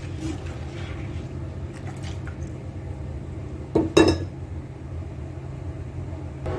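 Spoon stirring a milk, cream and cornflour mixture in a pot to work out lumps, with faint scraping and clinks and one louder clank of the spoon against the pot about four seconds in. A steady low hum runs underneath.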